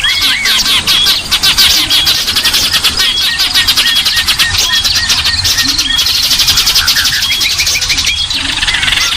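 A dense chorus of many small songbirds calling at once: fast buzzy trills and chattering, with short up-and-down whistles over them. This is a bird-lure (pikat) recording of small birds, played to attract them.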